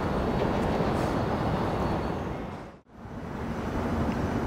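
Steady rumble of jet airliner engines at taxi power. It fades away to a moment of silence a little under three seconds in, then fades back in.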